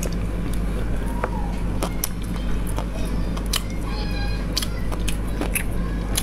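Eating braised sea snails by hand: wet sucking and sharp clicks as the shells are handled and the meat is pulled out, over a steady low hum.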